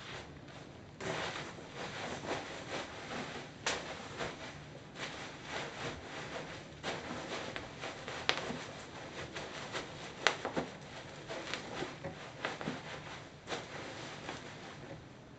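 Bubble wrap crinkling and crackling as it is trampled under Birkenstock sandals, with a few sharp pops of bursting bubbles, the loudest about eight and ten seconds in.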